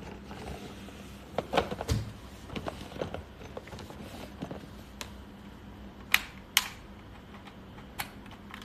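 Hands handling the parts of a plastic food processor and meat grinder, with scattered clicks and knocks and a few sharper clicks in the second half.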